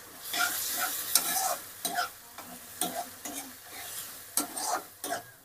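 Boiled black chickpeas frying in masala in a kadai, sizzling while a steel spoon stirs them, scraping against the pan in short irregular strokes. The sound stops abruptly at the end.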